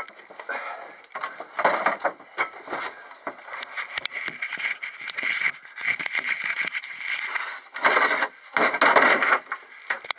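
Footsteps crunching and scraping over loose broken rock, with the camera rubbing and knocking as it is carried; two heavier bursts of crunching come about two seconds in and again near the end.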